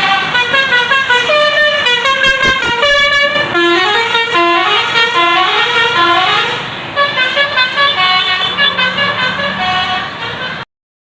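Tour bus telolet horn, a multi-trumpet musical air horn, playing a loud, fast tune of stepped notes that change about three to four times a second, with a short break a little past the middle. It cuts off abruptly near the end.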